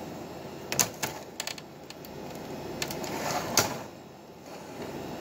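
Hollow plastic knocks and clatter of a Dell P2312H monitor's case being turned over and set face-down on a bench: a few sharp taps about a second in and another louder knock about three and a half seconds in.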